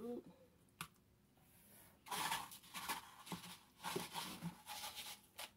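Hands coating raw shrimp in flour and breadcrumbs in plastic bowls: a run of faint scratchy rustles that starts about two seconds in, after a single light tick just under a second in.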